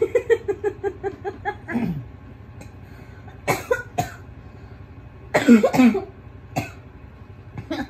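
A man coughing several times in sharp, harsh bursts, after a quick run of short vocal sounds at the start.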